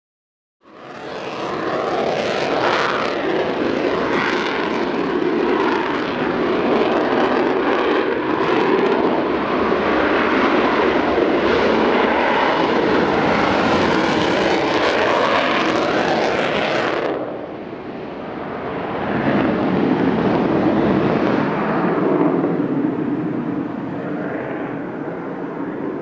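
Twin J79 turbojet engines of a JASDF F-4EJ Kai Phantom II running loud and steady as the jet taxis. About 17 seconds in the high hiss cuts off abruptly, leaving a duller, lower engine sound that swells again briefly and then eases.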